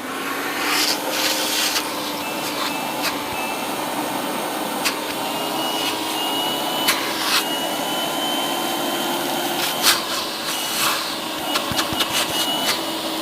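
Household vacuum cleaner switched on and running with a steady motor whine and airflow rush, punctuated by scattered sharp clicks. It is switched off near the end, and the motor winds down. The owner says it didn't power up properly at first.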